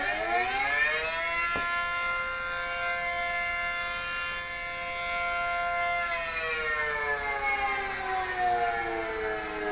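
P-15 outdoor warning siren wailing: its tone rises over about two seconds, holds steady for about four, then slowly falls before beginning to climb again near the end.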